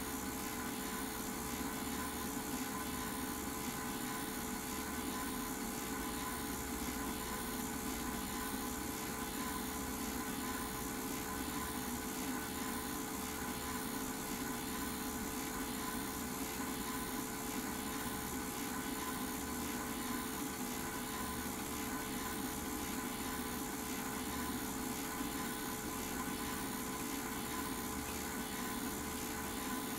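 Film projector running: a steady mechanical whir and hum with a few constant tones over a hiss.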